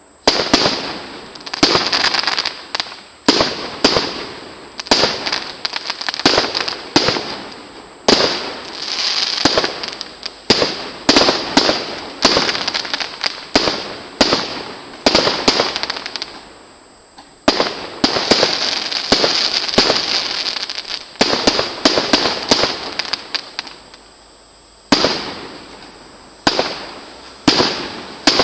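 Aerial firework shells bursting one after another, a sharp bang about every second with a fading tail. Through stretches in the middle and near the end the bangs come thick, with a steady crackling between them.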